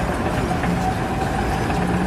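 A loud, steady mechanical rumble like an engine or heavy machine running, with a faint steady tone above it.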